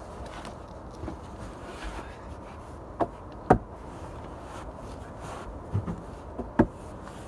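Several knocks and thumps as a subwoofer box console is set into place in a pickup's cab. The loudest comes about three and a half seconds in, with the rest spread through the second half, over steady background noise.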